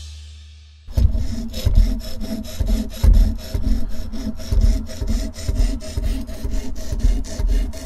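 Sharpening stone on a TSPROF guided-rod sharpening system rubbing back and forth along the steel edge of a Cold Steel kukri machete, setting a 25° bevel, in a steady run of rasping strokes about two a second. Before it, in the first second, a music tail fades out.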